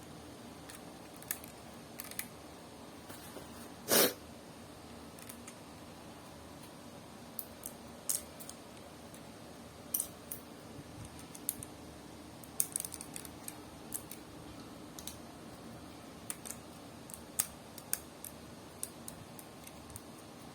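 Plastic Lego pieces clicking and tapping as they are handled and fitted together, in scattered sharp clicks with one louder snap about four seconds in.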